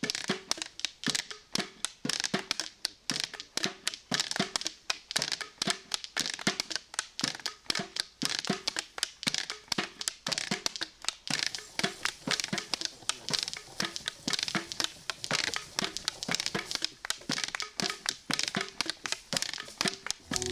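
A dense, unbroken run of crunching, crinkling clicks, about four or five a second.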